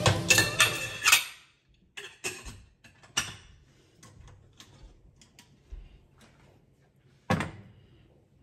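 Scattered sharp clicks and knocks of objects being handled and set down, with quiet gaps between. The loudest come right at the start and about seven seconds in.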